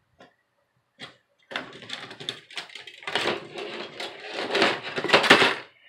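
Laptop parts being handled: the plastic palmrest and a loose metal keyboard plate clatter and rattle in a run of small knocks, starting about a second and a half in and loudest near the end.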